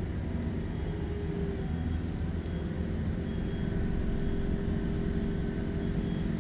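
Steady low engine drone from a distant motor, unchanging, with a few faint high chirps over it.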